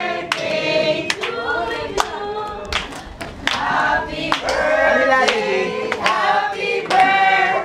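A group of people singing a song together, with scattered hand claps.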